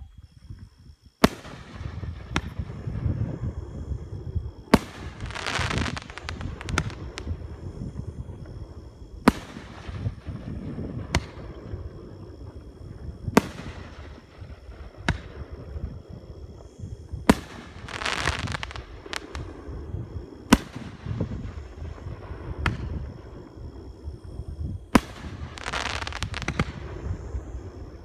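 Aerial firework shells bursting, about a dozen sharp bangs a few seconds apart. Several are followed by a second or two of crackling, with a low rumble in between.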